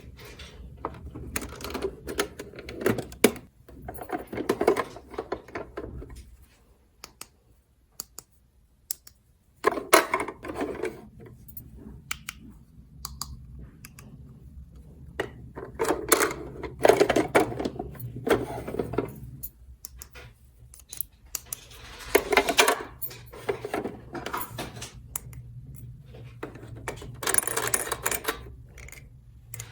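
Small plastic toy pieces being handled: irregular clicks, taps and light rattles, with several louder stretches of rustling and scraping.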